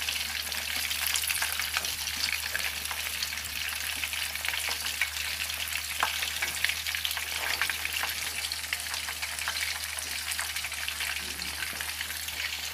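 Shrimp-topped bread slices in egg batter shallow-frying in hot oil in a wok: a steady sizzle with constant small crackling pops.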